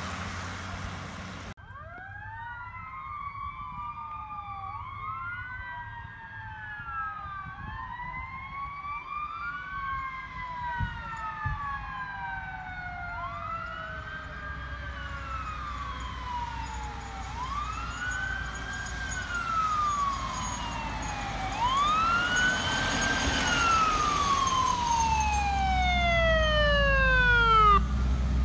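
Wailing sirens of approaching fire department vehicles, several sirens rising and falling out of step and growing steadily louder. Near the end one siren winds down in a long falling tone as a heavy truck's engine rumble builds.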